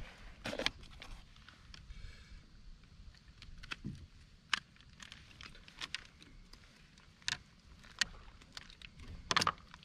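Handling sounds aboard a fishing kayak while a just-landed bowfin is held: about half a dozen scattered sharp clicks and knocks over a faint background hiss, the loudest near the end.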